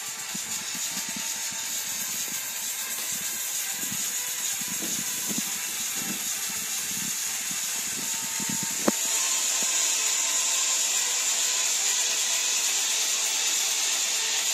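A steady hiss with irregular low rumbles during the first half. About nine seconds in there is a sharp click, after which the hiss is louder and steadier and the rumbles stop.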